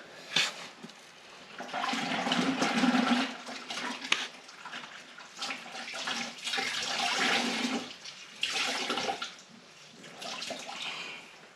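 Air blower blowing dust off furnace surfaces in about four rushing bursts, the longest nearly two seconds.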